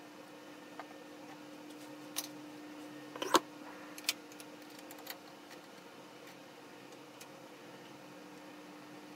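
Handling knocks and clicks as a wooden bowl is taken off a metal four-jaw lathe chuck and set down on the lathe bed, with the loudest knock about three seconds in. A steady low hum runs underneath.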